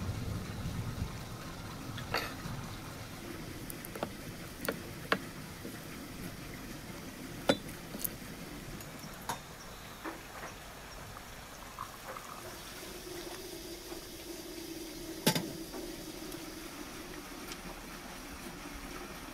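Glass tea glass, saucer, fork and crockery clinking and tapping on a wooden table, a dozen or so short sharp clinks, the loudest about seven seconds in and about fifteen seconds in, with tea poured into a glass. A faint steady hum sets in about twelve seconds in.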